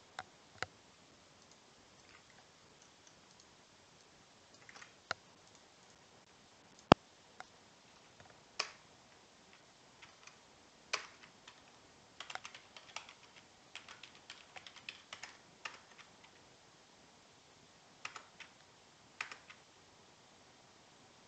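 Typing on a computer keyboard: scattered single keystrokes, a quicker run of keys in the middle, and one sharp, much louder click about seven seconds in.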